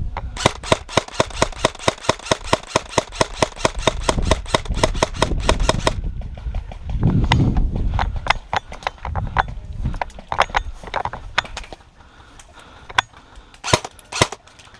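Airsoft light machine gun firing a long automatic burst of about five seconds, a fast even rattle of shots, which then stops. Scattered single cracks and rustling follow, with a couple of sharp shots near the end.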